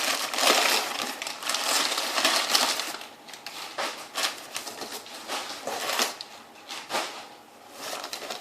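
Shipping packaging rustling and crackling as it is handled and unpacked by hand. There is a dense run of crackles for about the first three seconds, then scattered rustles and clicks.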